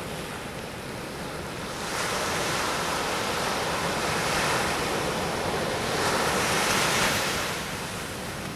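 Pacific Ocean surf: waves breaking and washing up the beach, the rush swelling about two seconds in, building again to its loudest around seven seconds, then easing off.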